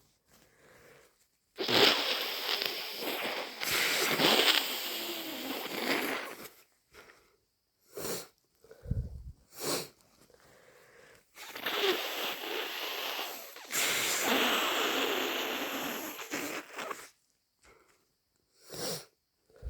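A person with a badly congested head cold blowing their nose hard twice, each snotty blow lasting about five seconds, with short sniffs in between and near the end.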